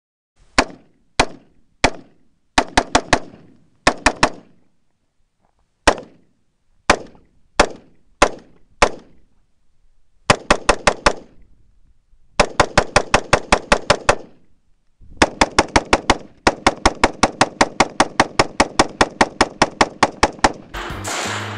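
Semi-automatic fire from an AR-15-style rifle: single shots about half a second apart, then quick strings of shots that build to rapid trigger pulls of about eight a second, each shot with a short echo. Near the end the shooting gives way to a dense rushing noise.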